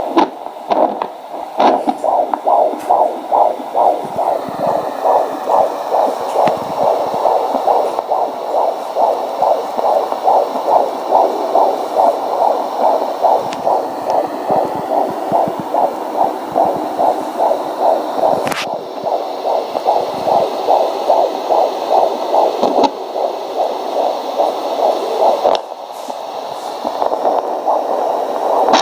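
Home fetal Doppler's speaker picking up an 18-week fetus's heartbeat: a loud, fast, evenly repeating pulse over a faint hiss, weakening briefly a few seconds before the end.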